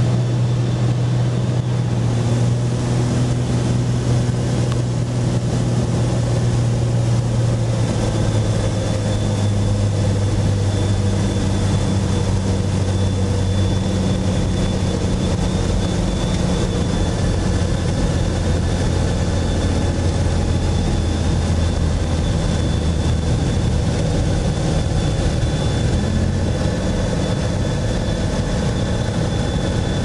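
Cessna 206's piston engine and propeller droning steadily, heard from inside the cabin on approach to landing; the drone steps down in pitch about a quarter of the way in and again later.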